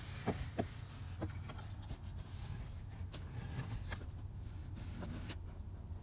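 Faint scattered clicks and rustles of handling, most of them in the first half, over a low steady hum.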